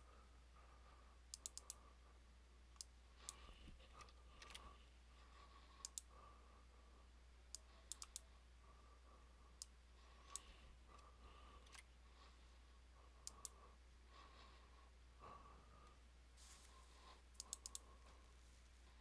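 Faint computer mouse clicks, some single and some in quick runs of three or four, over a faint steady electrical hum.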